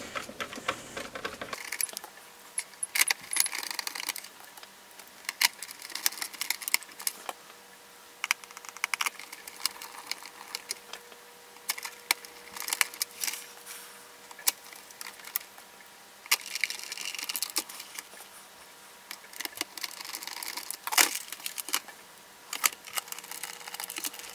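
Irregular small clicks and rattles of a hand screwdriver driving screws into a plastic car heater control housing, with the plastic unit and tools handled on the bench.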